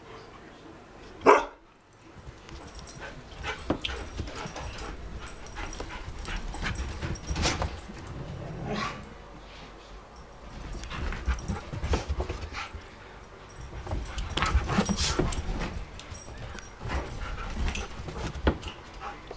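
Siberian huskies chasing each other, with irregular thuds and knocks of paws and bodies on the floor and furniture and brief dog vocalizations scattered through. One sharp, loud sound stands out about a second in.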